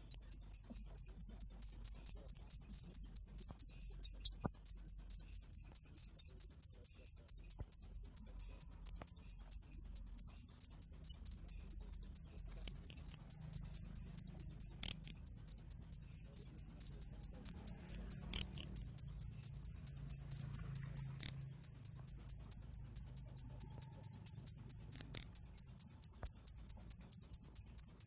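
An insect chirping loudly and evenly, about three high-pitched chirps a second without a break.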